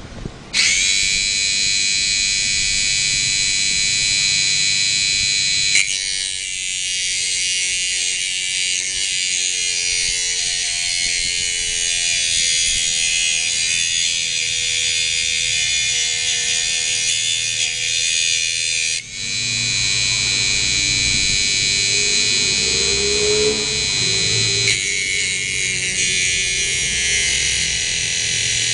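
A mini grinder's small electric motor switched on about half a second in, running with a high-pitched whine. Its sound changes abruptly several times, with rougher, noisier stretches.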